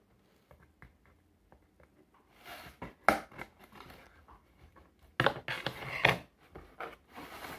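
Cardboard toy box and its packaging being handled: scattered small clicks and taps, a sharp snap about three seconds in, and a loud burst of cardboard rustling and scraping around five to six seconds in.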